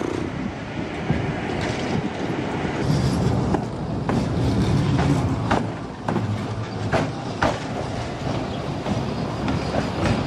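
Tram passing close by: a steady rumble that is loudest a few seconds in, with irregular sharp clicks as the wheels go over rail joints.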